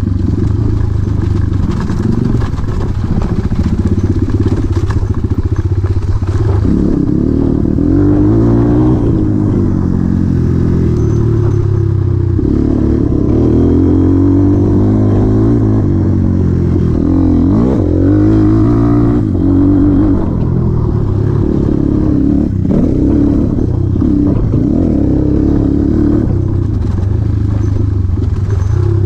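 1991 Honda XR200R's air-cooled single-cylinder four-stroke engine running while the bike is ridden, its pitch rising and falling over and over as the throttle is opened and closed.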